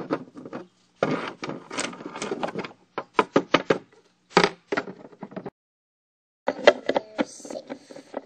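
Close handling noise from plastic toys: a run of clicks, knocks and rustles. It breaks off twice, briefly about a second in and for about a second past the five-second mark.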